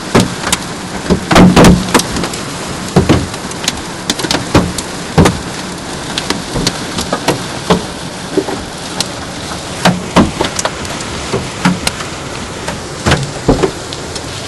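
Large hailstones striking a car's body and glass from inside the cabin: sharp, irregular bangs, several a second, over a steady rush of heavy rain and hail. The densest, loudest cluster of hits comes about one and a half seconds in.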